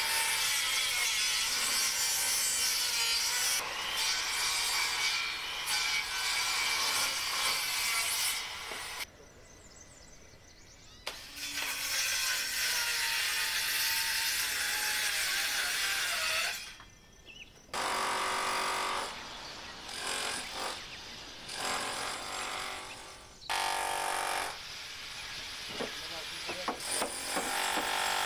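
A power tool cutting wood, running in several long stretches that stop abruptly, with short quieter breaks between.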